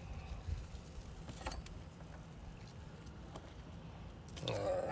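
Quiet handling noise: faint rustles and a few small clicks as gloved hands pull butcher's twine off its spool. Near the end comes a brief low voice sound.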